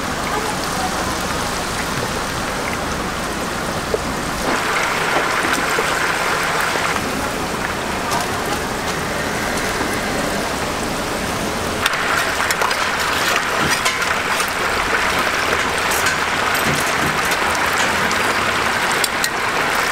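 Batter-coated chicken pieces deep-frying in a large pot of hot oil: a dense, steady sizzle full of fine crackles, growing denser and louder about twelve seconds in.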